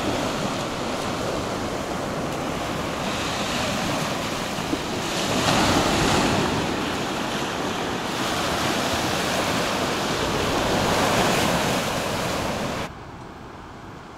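Small waves breaking and washing up a sandy shore, swelling louder twice as waves come in, with wind buffeting the microphone. Near the end the surf cuts off abruptly to a much quieter background.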